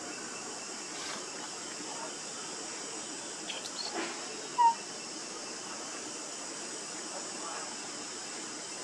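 Steady high-pitched drone of insects, with one short chirp about halfway through.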